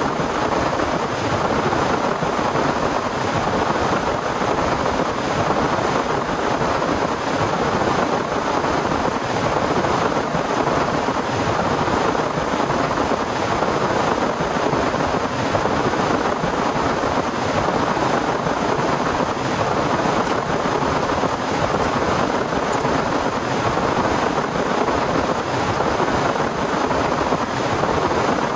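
Heavy rain pouring steadily, a dense even hiss that does not let up.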